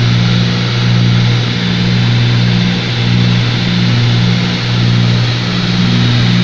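Cessna 310's twin piston engines and propellers heard from inside the cockpit during the landing approach: a steady drone with a throb that pulses about twice a second, over a constant rush of cabin wind noise.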